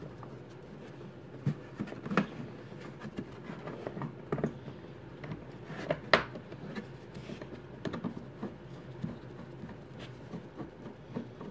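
Screwdriver and terminal bolt being worked by gloved hands while a cable is fastened to a scooter battery terminal: scattered scraping, small clicks and knocks, with the sharpest knock about six seconds in.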